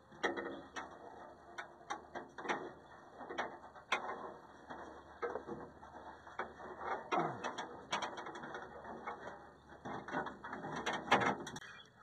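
Irregular metal clicks and rattles of latch hardware and hand tools being worked inside a Ford van's side-door panel as the repaired lock mechanism is put back in.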